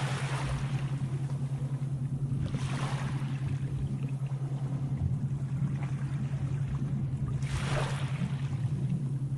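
Sea waves washing in three swells, at the start, about three seconds in and near the end, over a steady low droning hum.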